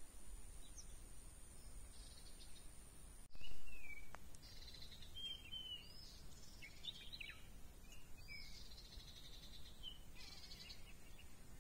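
Birds calling in short, rising and falling chirps over quiet outdoor background noise, with a faint thin high-pitched steady tone in the first few seconds that stops abruptly.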